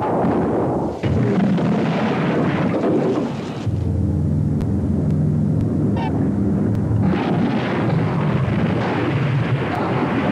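Loud rumbling noise of propeller aircraft engines on an old newsreel soundtrack, with a steady engine drone standing out in the middle few seconds.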